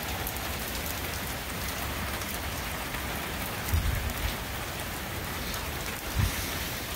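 Steady rain falling during a thunderstorm, with two brief low thumps, one about four seconds in and one just after six.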